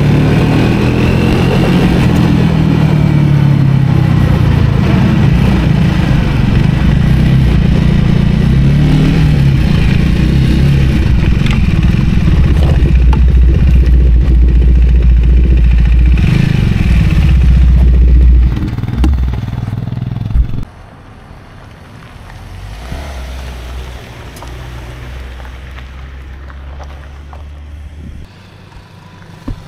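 Triumph 400 single-cylinder motorcycle engine running under way, its pitch rising and falling as the rider works the throttle and gears. About two-thirds of the way in it slows, and the sound drops abruptly to a much quieter low running.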